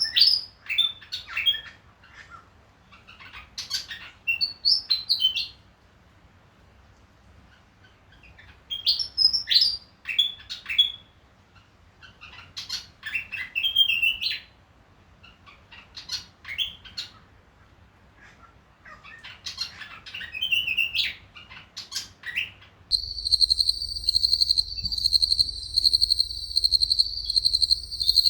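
Willie wagtail calling in short bouts of quick, high, gliding phrases, a bout every few seconds. About 23 s in, the recording switches abruptly to a steady, pulsing high insect chorus, like crickets.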